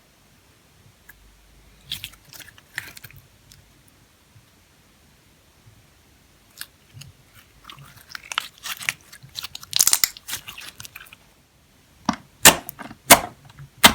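Slime being worked by hand with eyeshadow makeup mixed in: bursts of crackly, sticky clicking, with a few loud, sharp snaps near the end.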